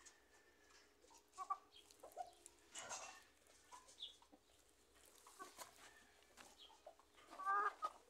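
Chickens clucking: short, scattered calls, the loudest near the end.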